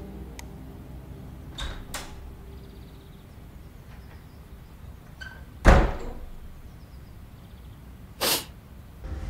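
Two light clicks, then a single heavy thump with a short ringing tail about halfway through, and a brief hissing swish near the end.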